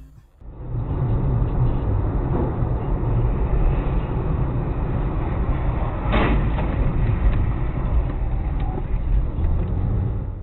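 Dashcam audio from a car driving on a highway: a steady rumble of road and engine noise. About six seconds in there is a short, sharp crunch as a car ahead hits the roadside barrier.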